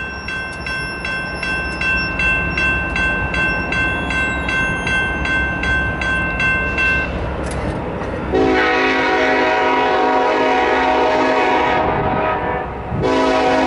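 A bell ringing about twice a second over the low rumble of an approaching freight train's diesel locomotive, then the locomotive's multi-chime air horn sounding: one long blast about eight seconds in, then a second starting a second after it ends.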